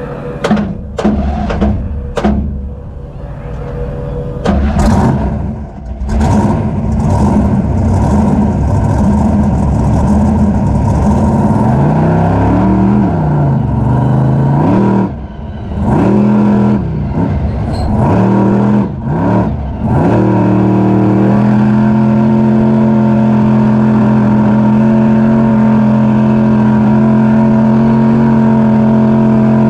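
Raminator monster truck's engine heard from inside the cab: short revving blips at first, then the pitch rises and falls several times with the throttle, and about twenty seconds in it settles into a steady high-revving run.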